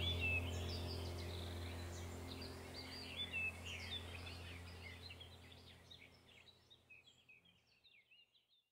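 Birdsong chirps over a low steady hum, a relaxing background track that fades out gradually to silence by the end.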